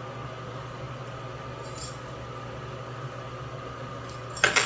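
Steady low room hum, with a brief rustle about two seconds in and a short, loud clatter near the end.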